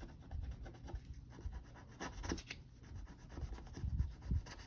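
Paper banknotes being handled and counted, with irregular rustling, sliding and light taps of the bills.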